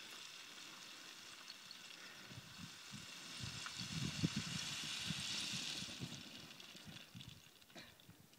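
Faint, distant engine of a trial motorcycle coming down a steep slope, growing a little louder about halfway through and then fading.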